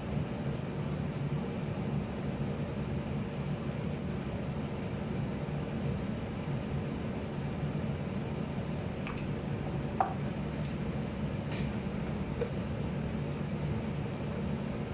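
Steady low machine hum, with a few light clicks and one small clink about ten seconds in.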